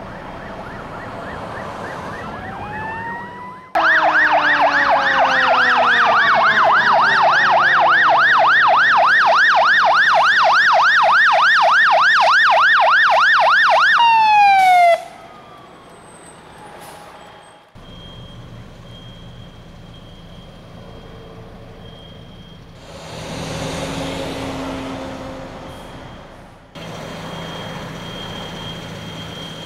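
Fire truck sirens: first a wailing siren rising and falling, then from about four seconds in a loud, fast yelp sweeping up and down about three times a second for some ten seconds before it winds down. After that a truck engine keeps running, with a faint steady high tone and a louder swell of engine noise near the end.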